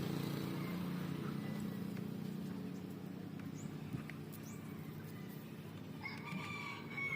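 A rooster crows once near the end, a held call of about a second. Under it a low steady hum fades away.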